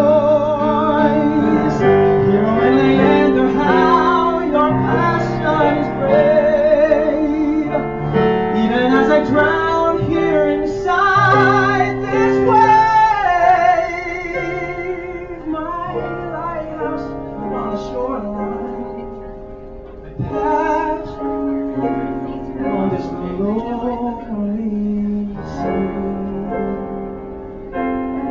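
A male tenor singing a ballad with vibrato over instrumental accompaniment. The song eases to a softer passage about halfway through, then builds again.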